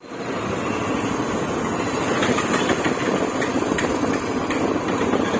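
Motorcycle engine running steadily while riding, with a few faint ticks.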